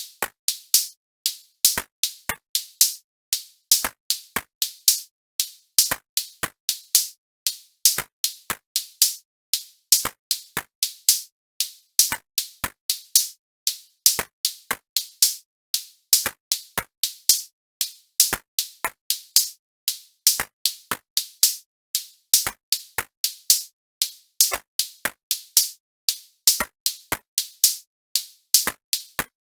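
Background music: a sparse drum-machine beat of short, crisp, high-pitched hits, about three or four a second, with no melody.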